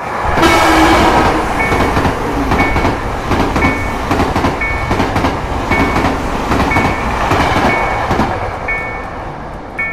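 A train passing a level crossing, its wheels clattering, starting loud about half a second in and easing off near the end. A crossing bell keeps ringing about once a second underneath.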